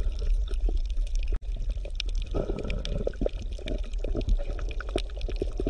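Water bubbling and gurgling in irregular small pops over a low steady rumble. It cuts out for an instant about a second and a half in.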